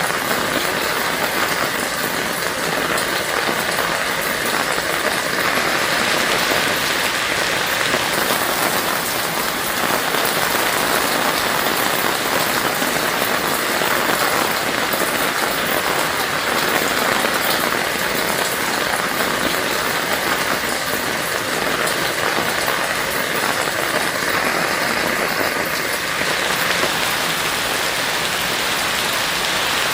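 Heavy rain falling steadily on surfaces, a dense even hiss of drops with no thunder.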